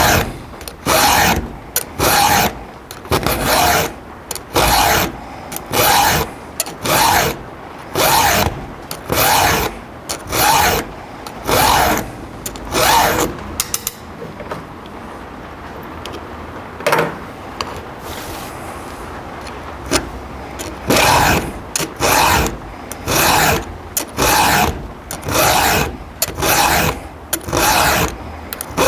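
Round file rasping across chainsaw chain cutter teeth in steady strokes about one a second, as a chain is sharpened by hand. About halfway through the strokes stop for several seconds, with a single stroke in the gap, then resume at the same pace.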